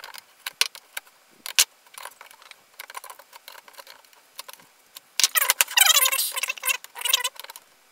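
Light metallic clicks of a spanner and pliers on nuts and steel threaded rod on a 3D-printed plastic vise. About five seconds in, a loud burst of metallic jangling and scraping lasts about two seconds as the pliers are set down and the vise is turned over.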